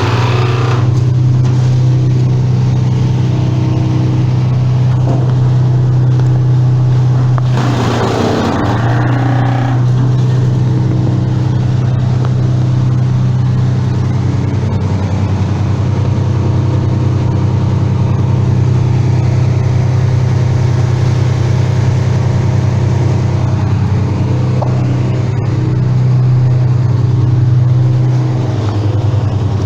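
An engine running steadily at a constant speed, a low hum with overtones. A brief louder rush of noise comes about eight seconds in.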